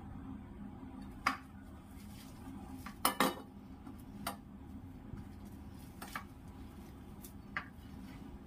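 Sharp clinks and knocks of a ceramic plate and a stainless-steel milk pot as gulab jamun dough is kneaded by hand on the plate. About six separate clinks, the loudest a quick double clink about three seconds in.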